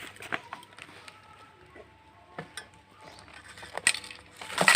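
Scattered light clinks and knocks, with a quick run of louder, sharper ones about four seconds in.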